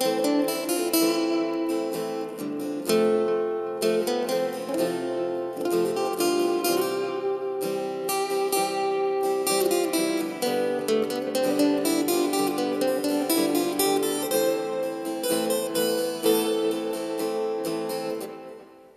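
Steel-string acoustic guitar playing a single-note lead solo in A minor over a backing track, dying away near the end.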